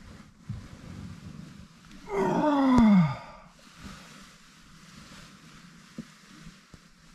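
A man's loud waking yawn about two seconds in, a single drawn-out voiced sound about a second long that slides steadily down in pitch, with a sharp click near its end, amid a soft rustle as he stirs in a nylon sleeping bag.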